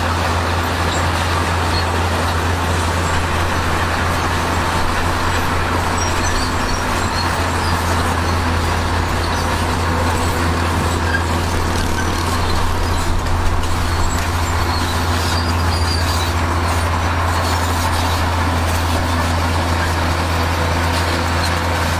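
Heavy diesel construction machinery running steadily, a constant low engine drone with a broad noisy wash over it and no changes in pace.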